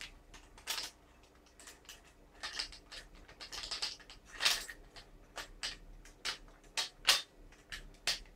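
Irregular sharp clicks and clacks of small metal and plastic parts of a WE M4 gas-blowback airsoft rifle being handled and fitted together, about a dozen in all, the loudest near the middle and about two-thirds of the way through.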